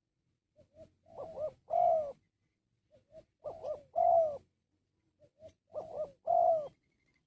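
Spotted dove cooing: three song phrases about two and a half seconds apart, each a couple of short soft notes leading into two louder drawn-out coos.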